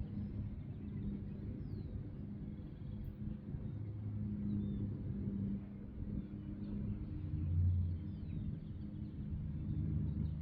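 Outdoor ambience: a steady low rumble of passing traffic, with faint bird chirps above it.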